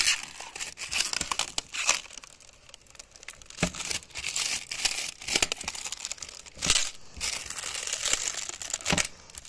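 Old window-tint film being peeled by hand off a tractor cab window pane, crinkling and crackling irregularly as it comes away, with a few louder snaps.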